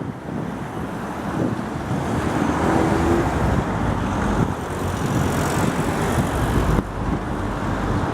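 City street traffic with a vehicle passing, growing louder through the middle and dropping off suddenly near the end, with wind on the microphone.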